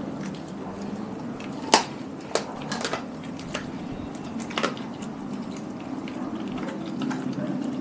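Doberman licking and gnawing at a whole raw chicken, with wet smacking and slurping and a few sharp clicks, the loudest about two seconds in.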